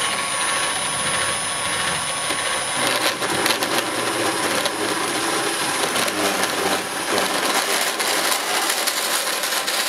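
Makita XGT PB002G 40V brushless portable bandsaw running at a low speed setting, its blade cutting steadily through a metal miter-saw support.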